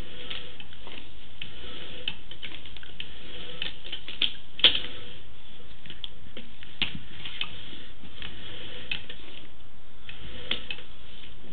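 Sewer inspection camera and its push cable being pulled back through a PVC sewer pipe, giving irregular clicks and ticks, with one louder click about four and a half seconds in.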